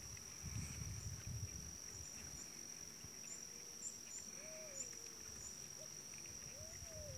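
Quiet wildlife ambience: a steady high-pitched insect drone throughout, with small high chirps repeating every half second or so and, from about four seconds in, a couple of short lower calls that rise and fall in pitch.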